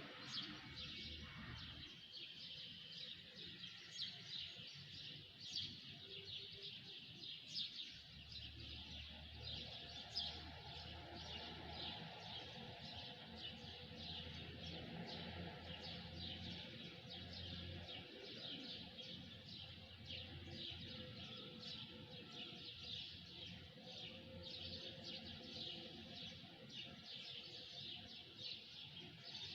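Many small birds chirping together in a dense, continuous chorus of short high chirps, with a few louder calls standing out in the first ten seconds.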